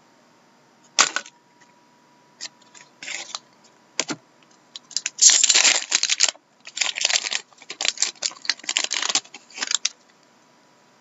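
Trading cards being handled and sorted by hand: a few sharp clicks and short rustles, then a run of dense rustling and scraping of card stock and wrapper from about five to ten seconds in.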